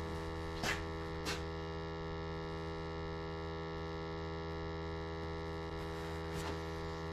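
Steady mains-frequency electrical hum with many overtones, with three faint short ticks, two about a second in and one near the end.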